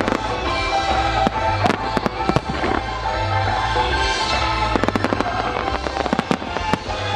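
Aerial fireworks going off: sharp bangs and reports in two clusters, about a second in and again from about five seconds until shortly before the end, over music with a steady beat.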